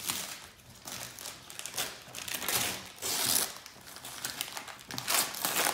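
Gift-wrapping paper crinkling and tearing as it is pulled off a small box by hand, in a run of noisy bursts that are loudest about three seconds in and again near the end.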